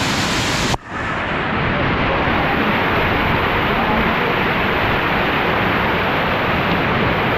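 Small waterfall's water pouring down in a loud, steady rush, with a brief dropout less than a second in.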